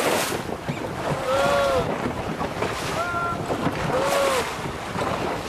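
Wind buffeting the microphone over choppy water around a rowed whaleboat, a steady loud rush and splash. Three short pitched calls, each rising then falling, cut through it about a second and a half apart.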